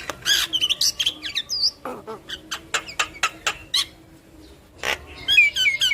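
Javan myna (jalak kebo) singing a varied chatter of sharp clicks, whistles and squawks. After a brief lull it breaks near the end into a fast run of repeated downward-sliding notes.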